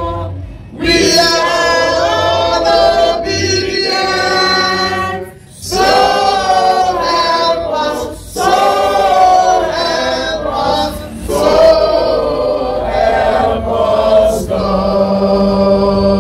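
A group of men and women singing together, in phrases with short breaks, ending on a long held note.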